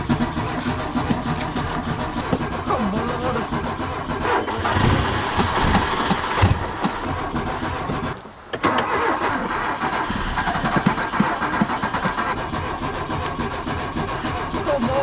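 Old Audi 80 being cranked on its starter in a hard cold start: long stretches of rhythmic cranking with the engine failing to catch, broken by a short pause about eight seconds in before the next attempt.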